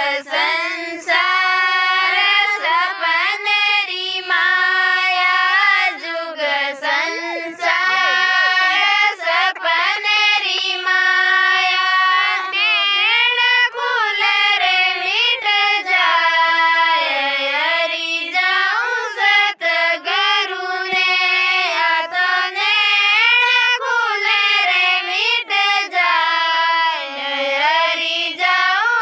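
A woman singing a Rajasthani devotional bhajan unaccompanied: one high voice holding long, sliding notes with short breaths between phrases.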